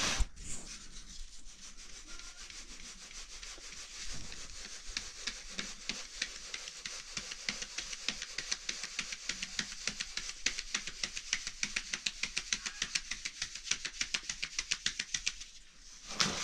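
Quick, rhythmic scraping strokes, several a second, growing stronger a few seconds in and stopping shortly before the end.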